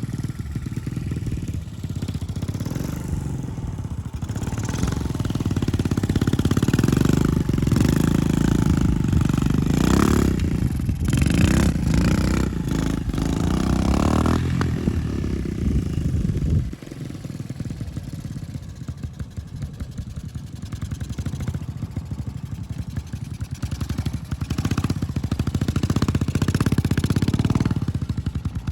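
Honda CT125-based trials bike's single-cylinder four-stroke engine running while being ridden. It is louder through the middle, drops off suddenly a little past halfway, then builds again near the end.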